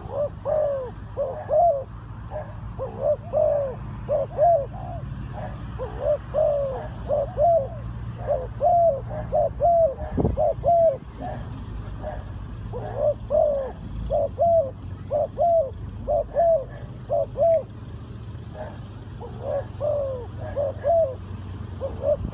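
Spotted dove cooing: rhythmic arched coos, about two a second, in runs broken by a few short pauses, over a steady low hum.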